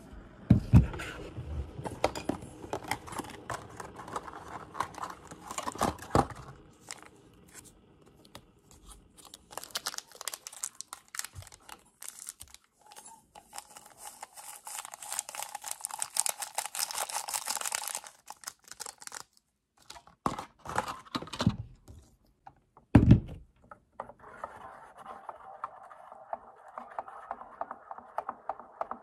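Preparing an instant stick drink at a table: knocks of things set down, a paper stick packet rustled and torn open over a stainless-rimmed mug, one heavy thunk on the table about three-quarters through, then a wooden spoon stirring in the mug with quick rapid ticks near the end.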